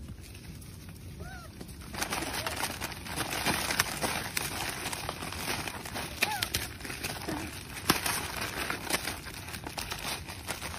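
A few short chirping bird calls over a rustling, scuffling noise with scattered clicks that grows louder about two seconds in.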